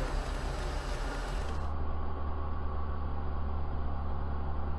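Steady road and engine drone inside a moving vehicle, picked up by a dash cam. About one and a half seconds in, the sound changes abruptly to a deeper, duller hum with the high end gone.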